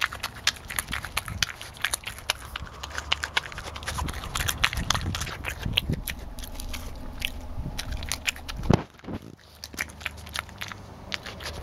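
European badger eating at close range: a steady stream of quick, sharp crunching and chewing as it bites through the food, with one louder knock about three-quarters of the way through.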